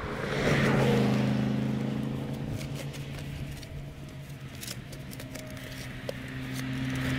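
Bobcat mini excavator's diesel engine running steadily at idle, with faint scrapes and clicks of a steel spade cutting into dirt.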